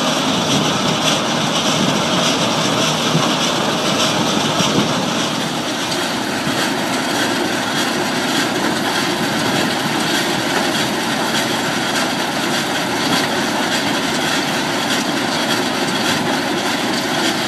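1992 Maxigrind 425 horizontal grinder running steadily and loud, its 425-horsepower CAT 3406 diesel engine and grinding mill working through yard waste of grass, leaves and branches.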